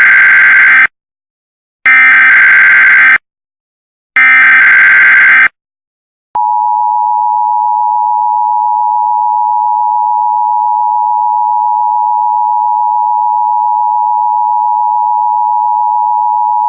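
Emergency Alert System warning signal: three harsh, buzzy digital header bursts about a second apart, the first already under way. Then, about six seconds in, a long, steady, loud alert tone that carries on unbroken.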